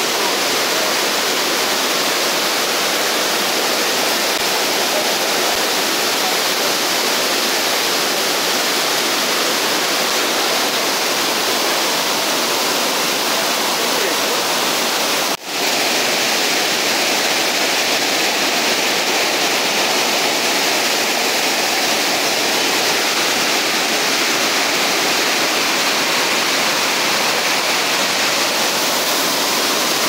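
Heavy floodwater pouring over a dam spillway and churning in white water below it: a loud, steady rush of water, broken by a momentary dropout about halfway through.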